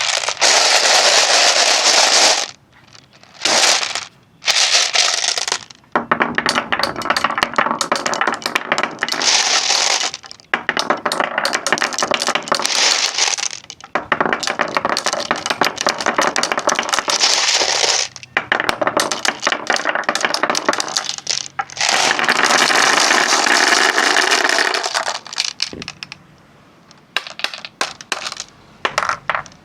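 Marbles rolling and clattering down wooden marble-run tracks, a dense rattle of rapid clicks. It comes in several runs of a few seconds each with brief pauses between, thinning to scattered clicks near the end.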